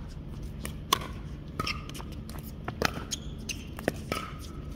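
Pickleball rally: sharp pops of paddles striking a plastic pickleball, a hit roughly every second, with fainter taps between.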